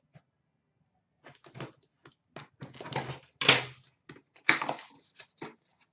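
A hockey card box being handled: a run of scrapes, knocks and rustles starting about a second in, loudest a little past halfway and again a second later.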